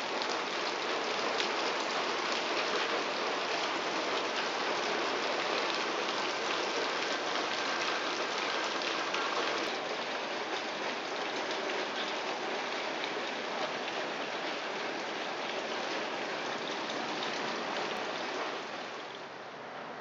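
Steady rain falling, heard through an open window: a dense, even hiss of many drops. It becomes quieter near the end.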